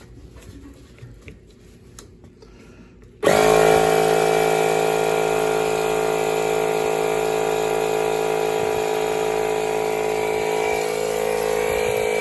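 Milwaukee M12 cordless inflator's compressor starting suddenly about three seconds in and then running steadily, pumping air into the expansion tank's air valve to push the water out and speed its draining. Before it starts, a few small clicks of the inflator being handled and its buttons pressed.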